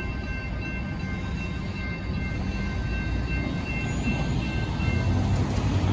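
Railroad grade-crossing bell ringing over the low rumble of a departing freight train. The bell fades out about five seconds in as the crossing gates rise.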